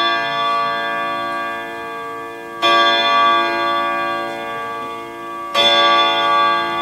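Grandfather clock striking: a chime rod or gong struck at the same pitch twice, about three seconds apart, with the stroke just before still ringing. Each stroke rings on slowly with many overtones.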